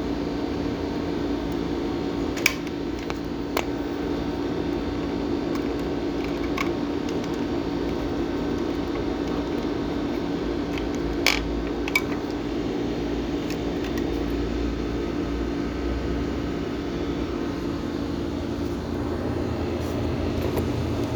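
A steady low mechanical hum, with a few short sharp clicks and taps scattered through it: twice near the start and twice about halfway through.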